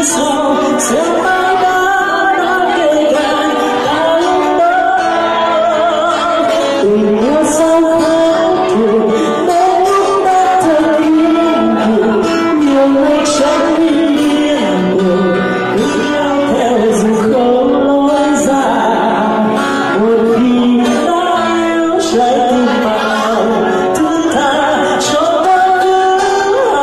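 A man singing a slow Vietnamese song into a microphone over a loudspeaker, with acoustic guitar accompaniment.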